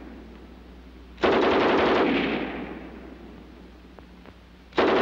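German MG 34 7.92 mm machine gun on its bipod firing short bursts of automatic fire, each about a second of rapid shots followed by a fading echo. One burst starts about a second in and another starts near the end.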